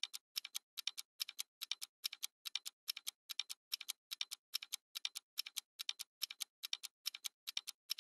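Clock-ticking sound effect: an even run of sharp double ticks, about two and a half a second, faint and steady.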